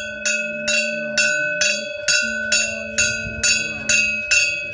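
A puja bell rung steadily during worship at a shrine, about two strokes a second, its ringing tone carrying on between strokes.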